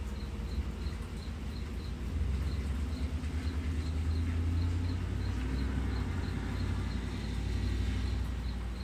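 Outdoor ambience: a low rumble that swells about two seconds in and eases off near the end, with a faint high insect chirp repeating about three times a second.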